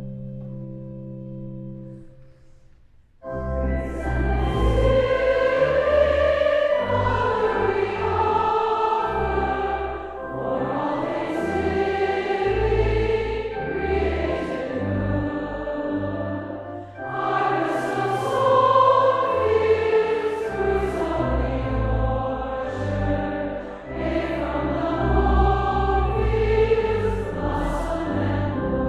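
A held instrumental chord, then a choir starting to sing about three seconds in, with a sustained low instrumental accompaniment under the voices.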